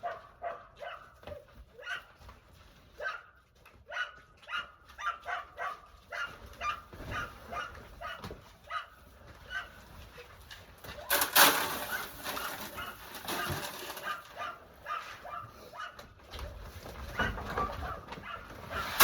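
Short animal calls repeating rapidly, a few a second, with a loud rushing noise about eleven seconds in.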